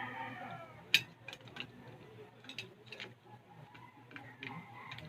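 A rooster's crow trails off at the start, then a series of sharp, irregular clicks and cracks, the loudest about a second in: crab shells being cracked open while eating.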